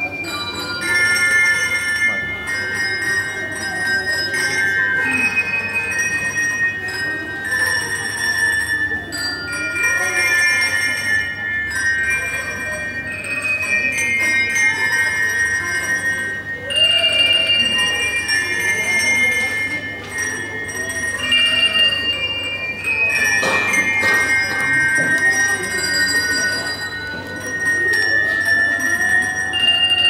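Handbell ensemble ringing a melody: bright handbell notes struck one after another and left to ring on, overlapping each other.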